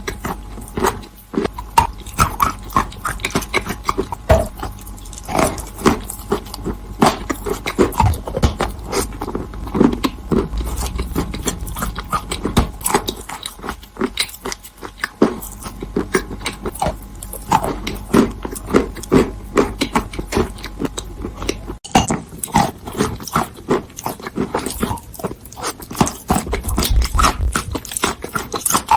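Close-up crunching and chewing of chalk in the mouth: many irregular sharp crunches, bite after bite, with wetter chewing between them.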